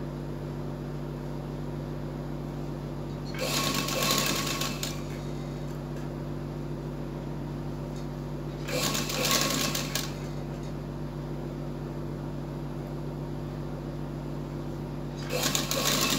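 Sewing machine stitching in three short runs of about a second and a half each: one about three seconds in, one near the middle, and one starting near the end. A steady low hum continues between the runs while the piping is folded and positioned.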